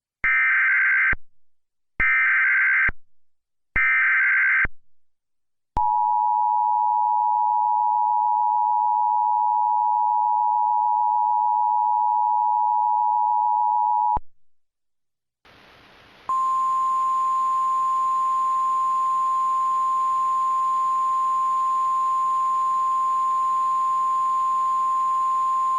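Emergency Alert System tones: three warbling data bursts of about a second each (the SAME header), then the two-tone attention signal held steady for about eight seconds. After a short gap comes radio static with a single steady weather-radio alert tone over it for about ten seconds.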